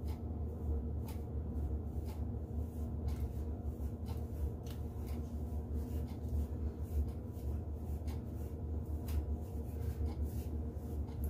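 Soft, irregular rustling and crackling of hands moving through curly hair, over a steady low hum.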